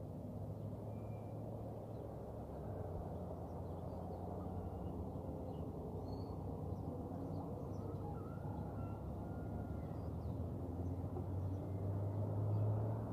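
Outdoor ambience: a steady low rumble that swells near the end, with a few faint bird chirps over it.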